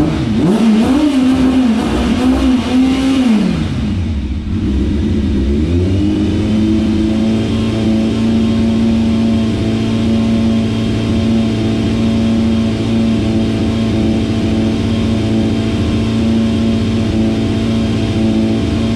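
Yamaha FZS600 Fazer's inline-four engine revved in several quick blips that rise and fall. It then drops back and settles, about six seconds in, into a steady idle.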